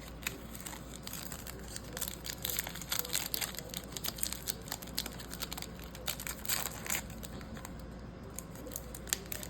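Plastic trading-card pack wrapper crinkling and tearing as it is ripped open, with irregular crackles, busiest about two to three and a half seconds in and again around six and a half seconds.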